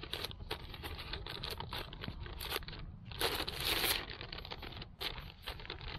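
Plastic MRE packaging crinkling and rustling as the entrée pouch is slid into the flameless ration heater bag: many small crackles, with a louder, longer rustle about three seconds in.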